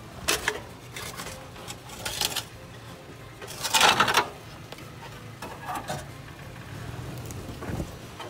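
Big off-road tyres of a Toyota FJ Cruiser crunching and grinding over rocks and gravel while rock-crawling, in several short bursts, the loudest about four seconds in, over the low steady run of the engine.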